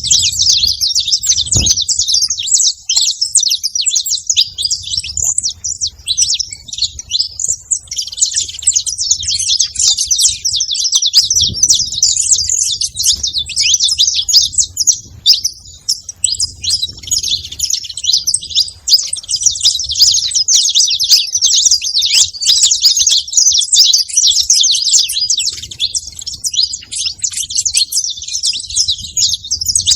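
Saffron finch chirping and singing nearly without pause: fast, high-pitched chirps run together into trills.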